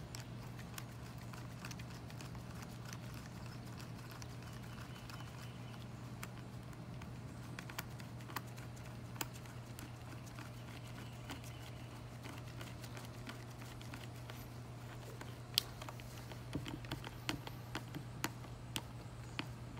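Scattered light clicks and taps of hand work on a power steering pump as a hose is fitted to it, growing more frequent near the end, over a steady low hum.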